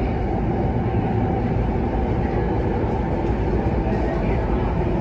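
Steady running noise of a Kinki Sharyo–Kawasaki electric train at speed, heard inside the carriage: an even rumble of wheels on rail and running gear.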